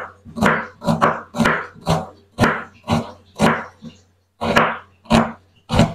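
Kitchen knife slicing a red onion thinly on a wooden cutting board: each stroke a crisp cut through the onion ending in a knock of the blade on the board, about two strokes a second, with a short break a little past the middle.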